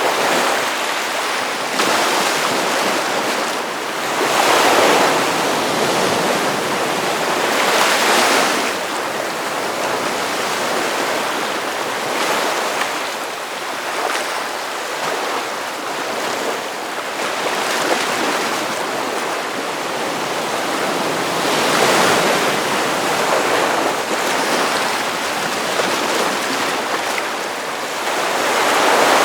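Ocean surf: waves breaking on a beach in a continuous wash, with a surge as each wave crashes every few seconds.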